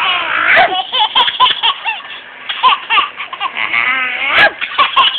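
Baby laughing in repeated short peals, mixed with a woman's silly vocal noises that set the laughter off.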